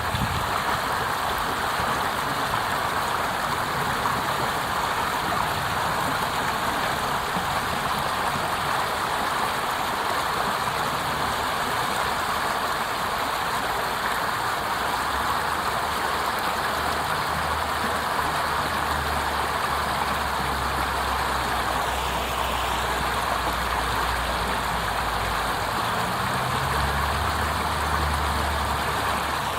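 Water rushing steadily over a small cascade. About halfway through, a low steady drone joins underneath, like a distant engine.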